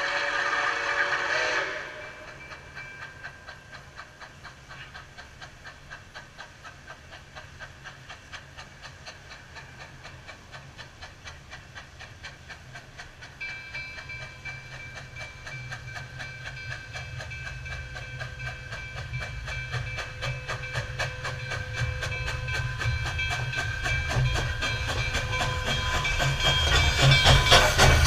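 Nickel Plate Road 765, a 2-8-4 Berkshire steam locomotive, approaching on a straight track: a steam whistle blast cuts off about two seconds in. Then a steady rhythmic exhaust beat and deep rumble grow louder as it nears. A whistle tone returns about halfway through, and the locomotive is loudest at the end as it passes close by.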